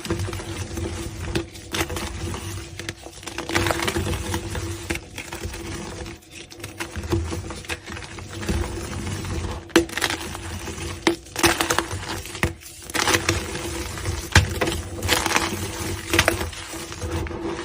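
Blocks of gym chalk being crushed and crumbled, with a continuous irregular crunching and crackling and a few sharper snaps standing out above it.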